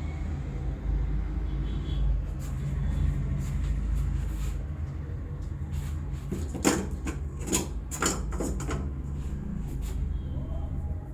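Hands working the head and neck in a massage, with a quick run of four or five sharp cracks about six and a half seconds in, over a steady low rumble.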